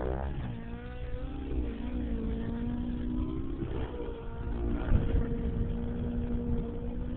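Align T-Rex 700 RC helicopter's 90-size nitro engine and rotors whining overhead during 3D aerobatics, the pitch rising and falling as the throttle and rotor load change, with a sharp dip near the start.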